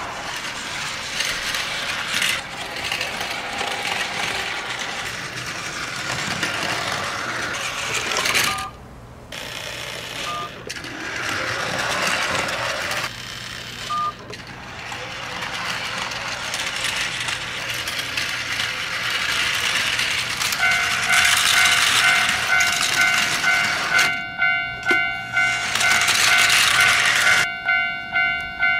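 Battery-driven Plarail toy shinkansen running on plastic track, with a steady mechanical whirr and clatter, and a few short beeps in the middle. From about two-thirds of the way in, a toy railroad crossing starts its electronic warning chime, which repeats in a regular pulsing ding-ding.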